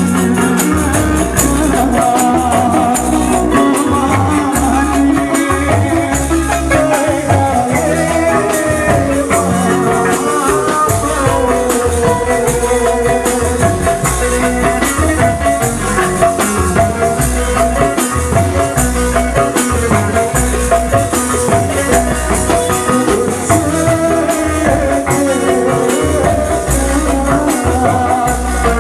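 Sasak kecimol street-band music played loud through a sound system: a melody over a heavy, steady drum beat, with busy high percussion running throughout.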